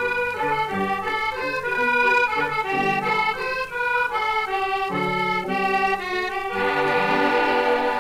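Accordion with piano accompaniment playing the instrumental ending of a 1930s French song on a 78 rpm record: a short run of melody over a moving bass, closing on a held final chord in the last second and a half.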